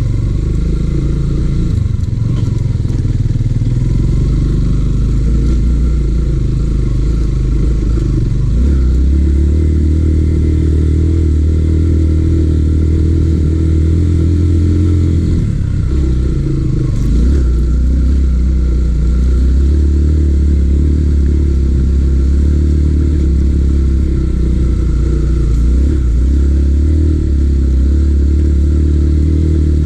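Yamaha XTZ150's single-cylinder four-stroke engine running steadily while ridden. Its low note steps up about eight seconds in, drops off briefly around the middle, then settles again.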